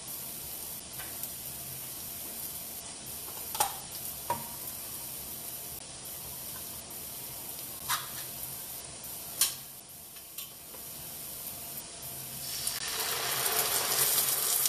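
Diced vegetables, mostly green bell pepper, sizzling in a nonstick skillet, with a few sharp clicks in the middle. Near the end the sizzle grows louder as condensed cream of mushroom soup is poured from the can into the hot pan.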